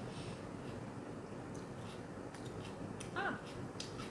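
Faint mouth and chewing sounds with scattered small clicks, and a brief murmur of voice about three seconds in.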